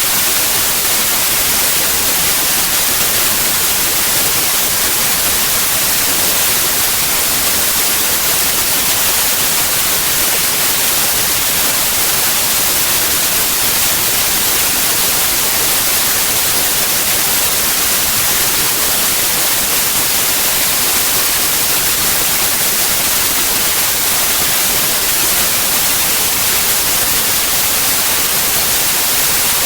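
Steady, loud white noise: an even, unchanging hiss.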